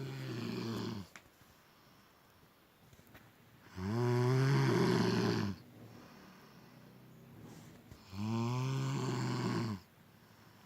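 A person snoring heavily. One long, pitched snore ends about a second in, and two more follow about four seconds apart, with quiet breathing between them.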